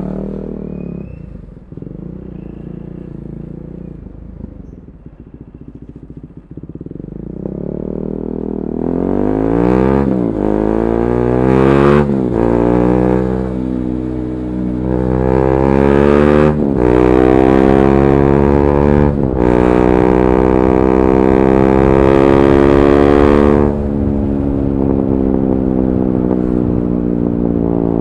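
KTM 390 Duke's single-cylinder engine through an Akrapovic slip-on exhaust with the catalytic converter removed. It runs low and steady for several seconds, then accelerates hard, its pitch climbing and breaking at four upshifts. It holds high revs, then drops to a lower steady note near the end.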